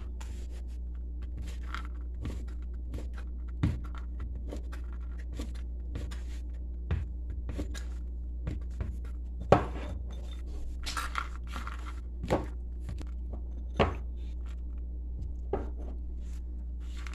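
Large steel knife chopping dried cranberries on a plastic cutting board: irregular knocks of the blade against the board, a few of them louder, over a steady low hum.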